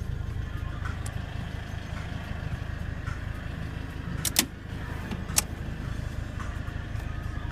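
Fiat van's engine idling with a steady low rumble, heard from inside the cab. Two sharp clicks about four and five seconds in, the first one the loudest.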